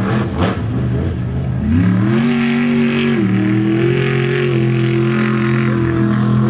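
Batman Batmobile monster truck's engine revving up about two seconds in and holding high revs, dropping briefly and climbing again. A few sharp knocks come near the start.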